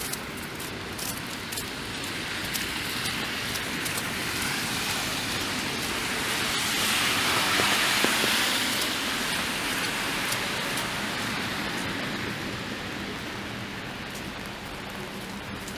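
Car tyres hissing through wet slush as a vehicle passes. The swish builds to its loudest about halfway through, then fades, over a steady wash of rain and sleet with small scattered ticks.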